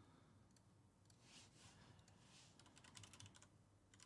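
Near silence with faint computer keyboard typing: light clicks in small clusters, about half a second in and again around three seconds in.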